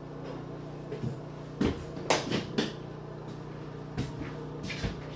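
A person handling things at a kitchen counter in a small room: a string of knocks and clatters at uneven moments over a steady low hum.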